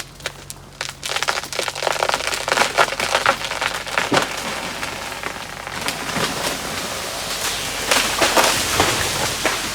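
A basswood tree falling: wood cracking and branches and leaves crashing through the canopy. It is a long, dense crackle full of sharp snaps that starts about a second in and dies away near the end.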